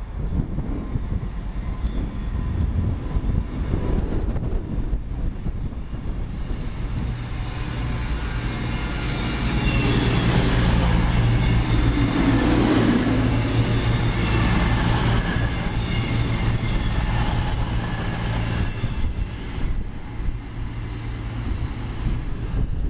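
Voyager diesel-electric multiple unit passing along the platform, its underfloor diesel engines droning steadily with wheel and rail rumble. The sound builds as the train draws alongside, is loudest about halfway through, then eases as the carriages go by.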